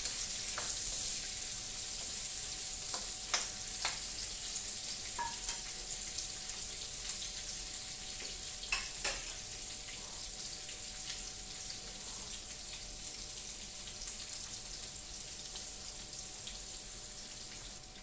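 Onions sizzling in hot oil in a pot, the sizzle easing off slowly. A few sharp clicks of a utensil against the pot come as they are stirred.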